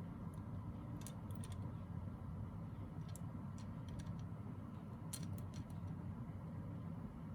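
A few light clicks and taps of a small die-cast toy motorcycle and its packaging being handled, over a steady low hum. The clicks come in small clusters about a second in, around three to four seconds in, and about five seconds in.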